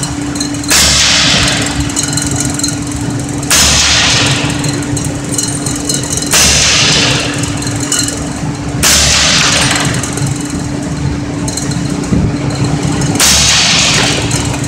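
Suppressed AAC 300 Blackout short-barrelled rifle firing Gemtech 187-grain subsonic rounds: five single shots, each a sharp crack that dies away over about a second, spaced roughly three seconds apart.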